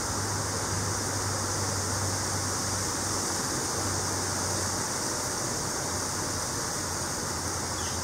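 Steady outdoor background noise: a constant low hum under an even hiss, with no distinct events.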